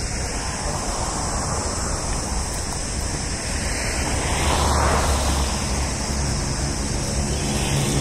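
Road traffic noise: a vehicle passes by, swelling and fading about four to five seconds in.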